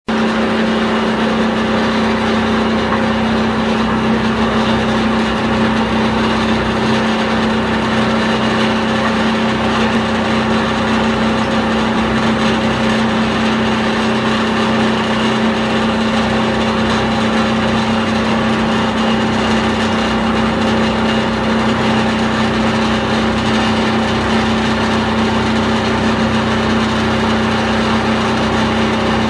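Plastic film agglomerator running as waste PP and PE film is fed into its drum: a steady, loud machine hum with one strong low tone over an even rushing noise.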